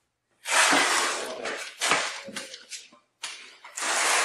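Notched steel trowel scraping and spreading tile mortar in repeated strokes, with two brief gaps where the sound drops out.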